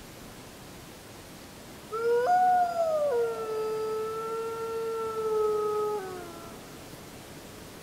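A wolf howling: one long call that starts about two seconds in, jumps up in pitch for a moment, then settles lower and holds steady before sliding down as it fades, over a steady background hiss.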